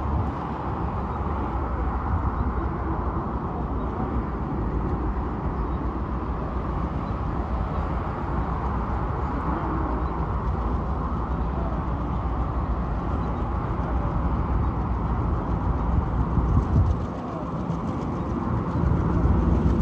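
Steady open-air noise of wind on the microphone and traffic on a highway beside the railway. Near the end a low steady hum comes in as the approaching diesel locomotive draws closer.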